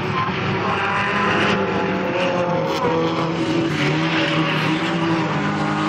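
Several sport compact race cars running on a dirt oval. Their engines rev at different pitches that rise and fall as the cars work around the track.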